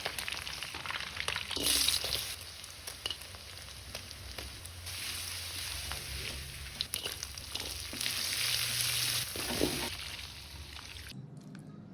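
Food frying and sizzling in a pan while being stirred, with scattered clicks of a utensil against the pan. The sizzle swells louder a few times and drops off suddenly near the end.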